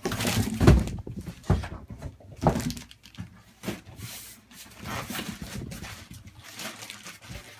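Desktop PC case being pulled out of its shipping box: packaging rustling and scraping, with several dull thumps, the loudest about a second in.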